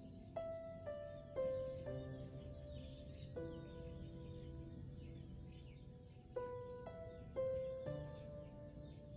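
Crickets chirring steadily at a high pitch, with slow, gentle music of single picked or struck notes over them: two runs of four notes about half a second apart, each note ringing on.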